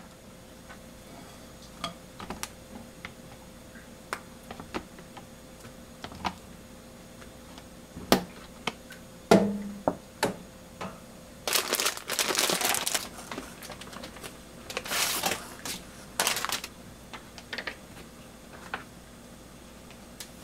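Metal kitchen tongs clicking and knocking against a plastic container and a small metal cup as cooked carrot sticks are moved. A little past the middle, tap water runs in short spells, rinsing the carrots to cool them.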